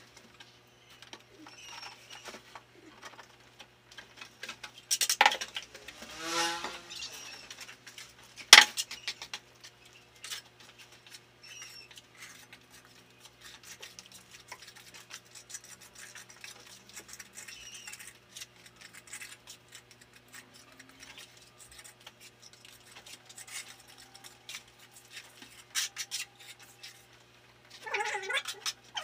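Scattered clinks, knocks and scrapes of masonry plastering work, metal on metal and on mortar. A cat meows briefly about six seconds in.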